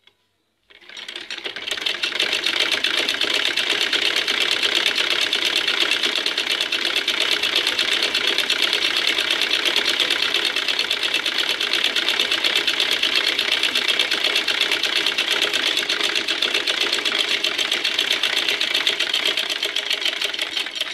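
Black domestic sewing machine stitching a straight seam at a steady, fast clatter. It starts about a second in, picks up speed over the next second, and stops at the end.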